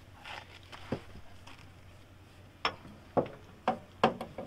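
Several sharp knocks and clicks from parts being fitted by hand at a front wheel hub during a CV axle replacement, one about a second in and a quick run of four in the second half.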